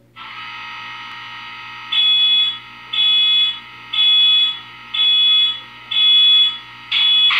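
DCC sound decoder of an HO scale Walthers Norfolk Southern SD70ACe model locomotive, heard through its small onboard speaker. A steady running sound comes on abruptly at the start. About two seconds in, a high pitched tone begins sounding about once a second: five short blasts, then a sixth held on near the end.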